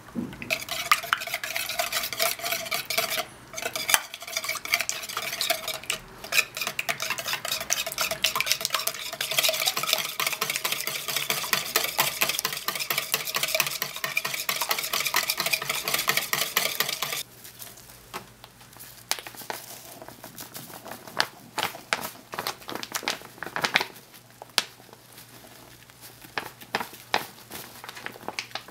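Egg and milk being beaten fast in a plastic mixing bowl with a whisk: a dense, rapid rattle of clicks that stops about two-thirds of the way through. After that come quieter, scattered clicks and rustling as powdered pancake mix is poured in from its bag.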